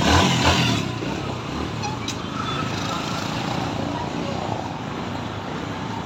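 TVS Stryker 125's single-cylinder four-stroke engine running steadily at idle after an overhaul, including repair of its knocking clutch basket.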